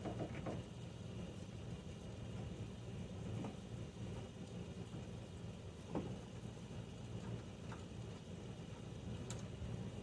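A steady low engine-like hum, with a few faint clicks as a T15 Torx screwdriver turns out the taillight mounting screws.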